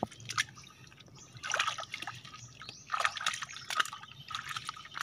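Hands digging and scooping through wet mud and water in a flooded mud crab burrow, with wet squelching and splashing in three short bursts.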